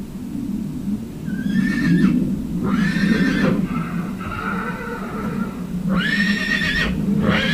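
A horse whinnying, about five calls in a row, each a high held cry of half a second to a second, over a steady low rumble.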